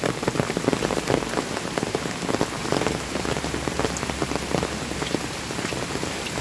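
Steady rain falling, with many sharp, close drop hits over an even hiss.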